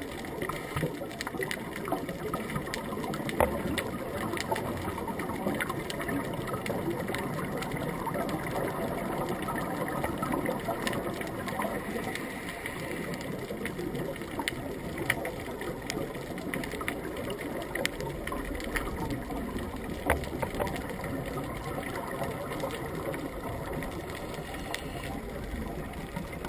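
Muffled underwater ambience heard through a GoPro's waterproof housing: a steady low rushing noise with scattered sharp clicks.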